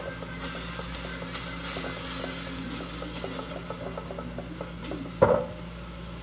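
Raw rice sizzling as it is stirred and fried in hot oil in a pan, with a spoon clicking and scraping against the pan. A single loud knock a little after five seconds in.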